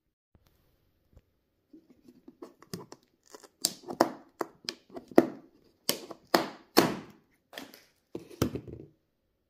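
Scissors slitting packing tape and plastic strapping on a cardboard TV box: a run of about a dozen short, sharp ripping strokes that starts about two seconds in.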